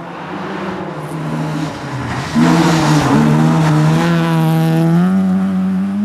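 Rally car driven hard past at speed: the engine grows louder as it approaches, turns loud about two and a half seconds in as it goes by, and its pitch steps up a little near the end.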